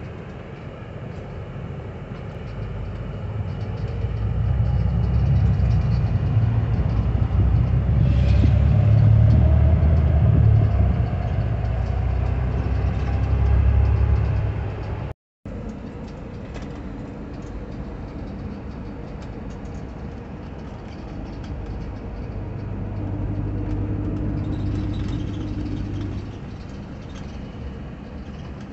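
Running noise inside a moving vehicle: a low rumble that grows louder as it picks up speed, with a slowly rising whine. After a brief dropout about halfway through it settles into steadier, quieter running.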